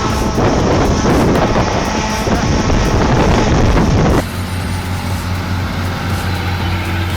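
Heavy machinery running: a loud, noisy rumble for about four seconds, then a sudden cut to a steady low engine drone.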